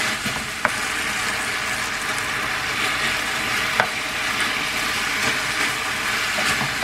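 Meat and vegetables sizzling in a frying pan in bubbling sauce as they are stirred, with two short clicks about half a second and nearly four seconds in.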